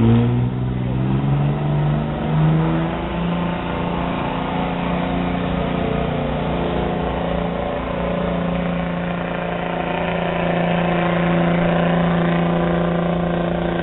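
Modified pickup truck's engine at high revs under heavy load while pulling the sled down the track. Its pitch climbs in steps over the first couple of seconds, then holds steady and loud.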